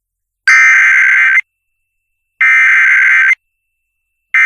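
Emergency Alert System SAME header: three loud bursts of harsh, buzzy digital data tones, each about a second long with a second of silence between them, the third starting near the end. The bursts carry the coded alert, a severe thunderstorm warning, and open the emergency broadcast.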